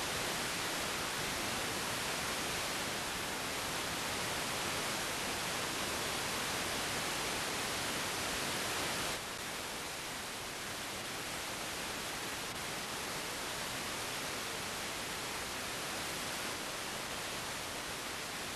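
Steady hiss of static from an analogue TV receiver tuned to a weak, distant VHF signal, with no programme sound coming through. About nine seconds in, the hiss suddenly drops a little and changes slightly in tone.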